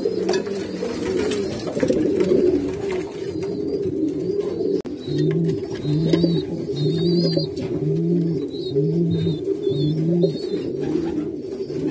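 Many racing pigeons cooing together in a loft, a dense, overlapping chorus of low coos. From about five seconds in, one bird's deeper coo repeats about once a second.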